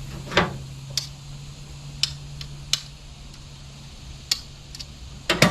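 Scrap aluminum siding and metal pieces clanking and knocking as they are handled and loaded: six sharp, uneven knocks, the loudest about half a second in and at the very end, over a low steady hum that stops about four seconds in.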